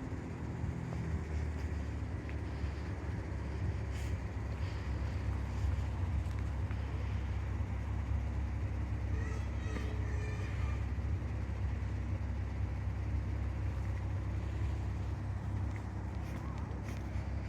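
Steady low vehicle rumble, unchanging throughout.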